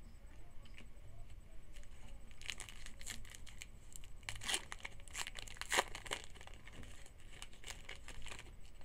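Foil wrapper of a 2011 Topps Rising Rookies trading-card pack being torn open and crinkled by hand, in crackly clusters from about two seconds in until near the end.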